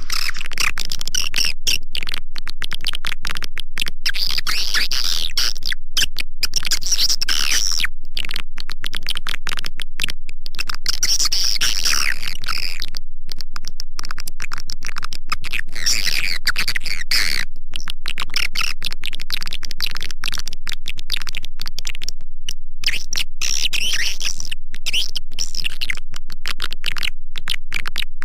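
Edible-nest swiftlet call-lure recording: dense, rapid twittering chirps, kept at an even loudness and chopped by many brief dropouts. A faint low hum runs underneath.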